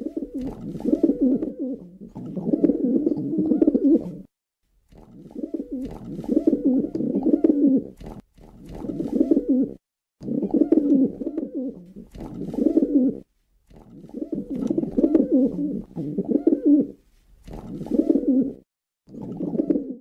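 Feral pigeons cooing: low, repeated coos running in phrases of one to a few seconds, with brief pauses between them.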